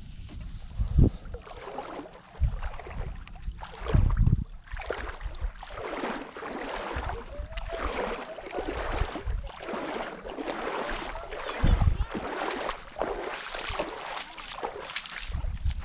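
Shallow lake water sloshing and splashing in a run of surges about once a second, with a few low thumps of wind or handling on the microphone.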